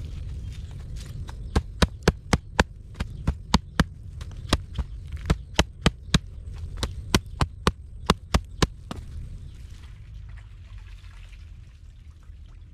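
A quick series of sharp knocks or chopping strikes, about two dozen at roughly three a second, starting about a second and a half in and stopping about nine seconds in, over a low steady rumble.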